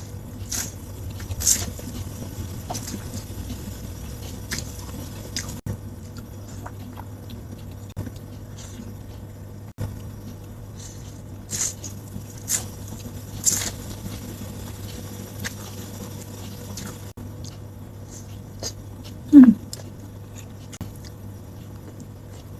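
Close-up mukbang eating: chewing and slurping of rice vermicelli and fish balls in soup, with scattered sharp clicks from spoon or chopsticks. About 19 seconds in comes the loudest sound, a short pitched slide downward, over a steady low hum throughout.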